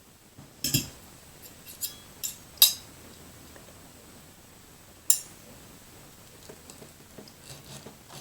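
Cutlery clinking against a plate or dish: several sharp clinks in the first few seconds and one more about five seconds in, then softer small ticks near the end.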